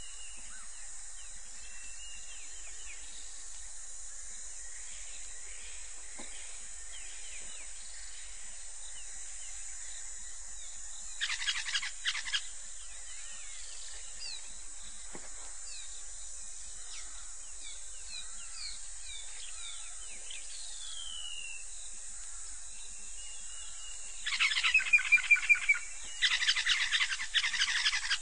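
African bush ambience: many birds chirping and whistling over a steady high insect buzz. Loud, rapid rattling calls break in about eleven seconds in and again for several seconds near the end.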